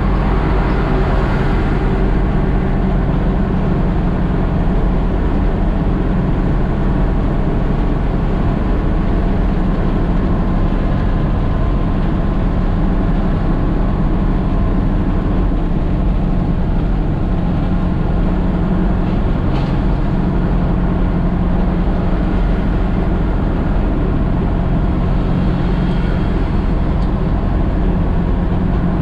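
Nissan CK 31 L concrete pump truck's diesel engine running steadily as the truck drives along, a low even drone with road noise.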